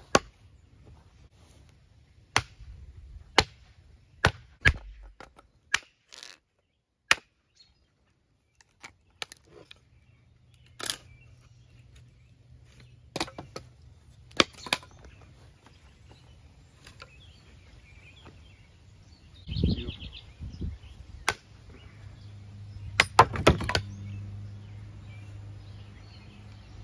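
A tomahawk head wedged onto a makeshift stick handle, knocking against wood in a string of sharp, separate cracks at uneven intervals. A heavier thud comes about twenty seconds in, then a quick cluster of knocks near the end.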